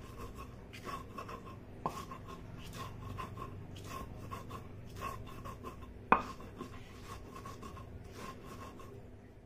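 A stone batta rubbed back and forth over a flat stone sil (sil-batta), grinding salt with green chillies and garlic into a paste. It makes a run of gritty scraping strokes, with one sharp stone knock, the loudest sound, about six seconds in.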